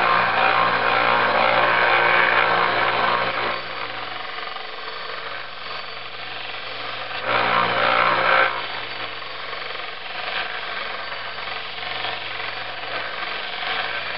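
Electric grinder running steadily with a motor hum while the steel edge of a hatchet head is ground: loud grinding contact for about the first three and a half seconds, then the motor alone, then a second short pass of grinding in the middle, as the edge is being reprofiled to a convex bevel.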